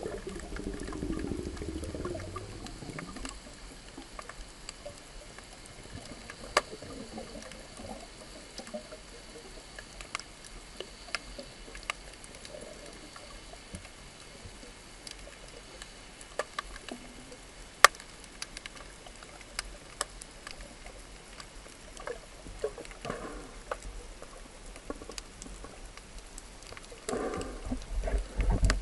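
Underwater ambience picked up by a camera held below the surface: a low hiss with scattered sharp clicks and crackles. Bubbly burbling comes during the first few seconds and again near the end, as the swimmer comes up to the surface.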